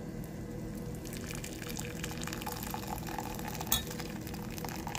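Hot boiled onion water being drained off from the pot into a mug, liquid pouring and splashing with light clinks; one sharper clink partway through.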